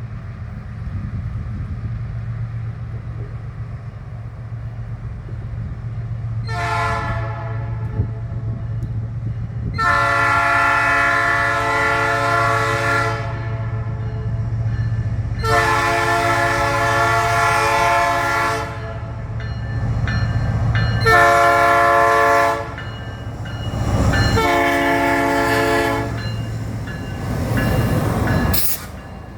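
Locomotive air horn sounding five blasts, short, long, long, short, short, over the steady low rumble of the locomotive's running engine. A brief sharp noise comes near the end.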